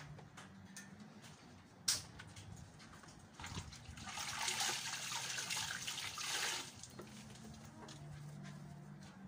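A sharp click about two seconds in, then water splashing for about three seconds as a wet garment is handled over the ground. A faint steady low hum underneath.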